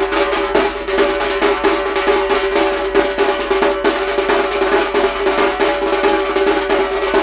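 Traditional Minangkabau drum ensemble: large barrel drums (tambua) beaten with sticks in a fast, driving rhythm, with a sustained melodic line held over the drumming.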